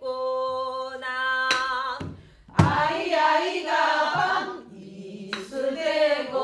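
Singing of a Korean Namdo minyo folk song, with held notes and then a wide, shaking vibrato in the Namdo style. It is punctuated by strikes of a buk barrel drum played with a stick; the strike about two and a half seconds in is the loudest.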